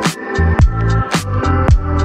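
Background music with a steady kick drum about twice a second, a bright snare-like hit on every other beat, and a bass line.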